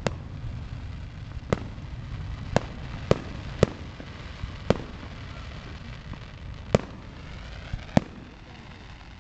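Aerial firework shells bursting in a display finale: about ten sharp bangs at uneven intervals, one every second or so, with a gap of about two seconds before the last few.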